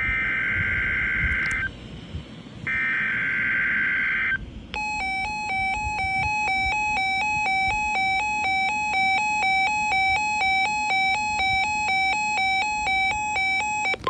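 Two NOAA Weather Radio SAME digital header bursts, short buzzy data screeches about a second apart, marking an incoming alert. After them a weather alert radio's alarm starts, a harsh electronic beep that switches rapidly between two close pitches and keeps going steadily.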